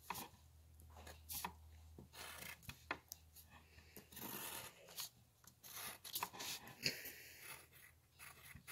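Faint scratching of a drawing tool on paper: a run of short, irregular sketching strokes.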